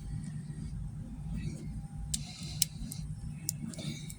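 A few light, sharp clicks of metal parts and tools being handled, over a steady low hum.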